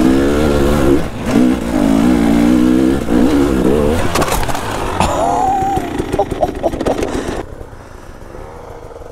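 Dirt bike engine working hard up a rocky climb, its pitch wavering as the throttle opens and closes, with knocks from the bike over the rocks. About seven and a half seconds in it gives way to a quieter, more distant engine.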